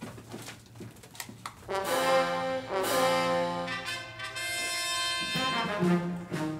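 Brass fanfare: after a quiet couple of seconds with a few faint knocks, short brass chords sound about two seconds in, followed by a long held chord and lower notes near the end.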